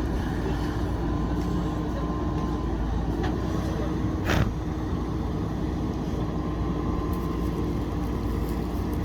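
JCB backhoe loader's diesel engine running steadily, with a single sharp knock about four seconds in.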